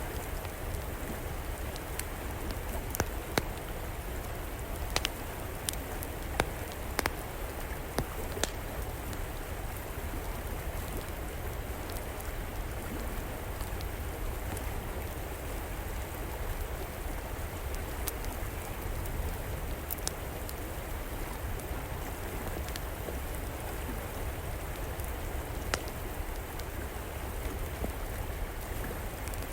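River water flowing steadily, with an outdoor wood fire crackling over it. Sharp pops come in a cluster in the first several seconds and only now and then after that.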